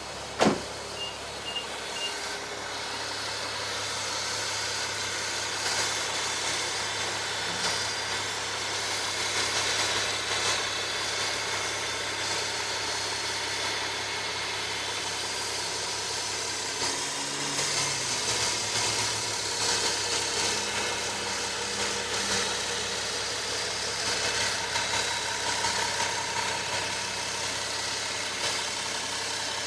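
Nissan 370Z's V6 engine running steadily with a whine, the noise the owner wants diagnosed. A sharp knock comes about half a second in, followed by three short high beeps.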